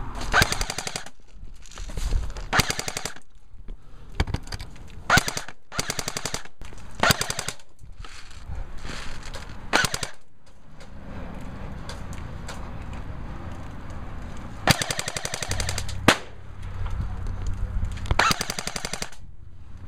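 Airsoft rifles firing full-auto, in about ten short rapid bursts of clicks. Most bursts last under a second, and a longer one comes near the end.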